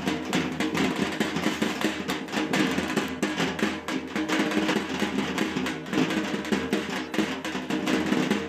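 Music with a steady beat and held instrumental notes.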